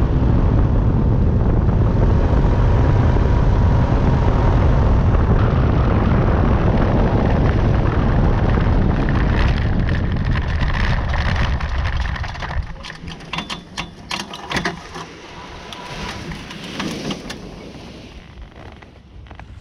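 Buckeye Dragonfly powered parachute's engine and propeller running loud with a low rumble, then cut off about twelve seconds in. After that come scattered clicks and rattles from the cart and its lines.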